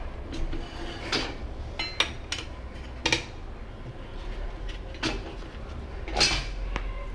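Metal tire levers clinking and scraping against a motorcycle wheel rim as a stiff new tire's bead is pried over the rim, in about five separate strokes.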